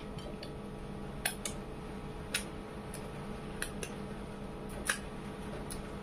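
Short, sharp wet mouth clicks of lips and tongue licking curry off fingers, about six scattered over a few seconds, over a steady low room hum.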